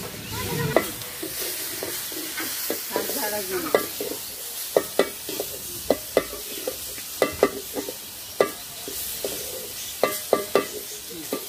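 Long-handled metal spatula scraping and knocking against a large metal karahi as water spinach is stir-fried, with irregular sharp clicks of metal on metal over a steady sizzle.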